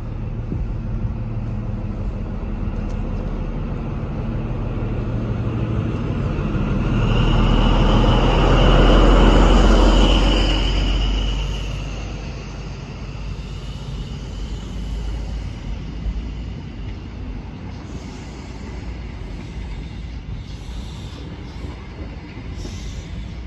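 A High Speed Train made up of a Class 43 diesel power car and Mark 3 coaches approaches and runs past. The diesel rumble builds to its loudest about nine seconds in, with a high whine as the power car goes by. The coaches then roll past more quietly, with wheels clicking over the rail joints.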